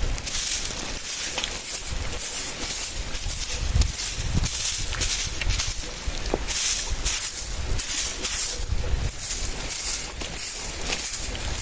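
Strong gusty wind buffeting the microphone with a low rumble, over a hiss of rustling that swells and fades with the gusts.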